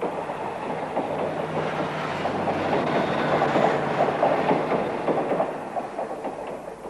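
Train passing close by, its wheels clattering rapidly over the rails; the sound swells to a peak in the middle and fades toward the end.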